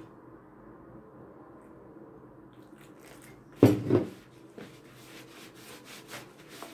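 Hands kneading stiff dough in a plastic bowl: soft rubbing and pressing, with two heavy thumps a little past halfway and a few lighter knocks after.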